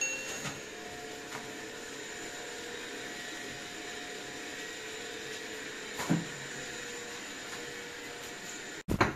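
A small motor or fan running with a steady whirring hum, with a few light clicks and a knock about six seconds in, and a short loud knock just before the end.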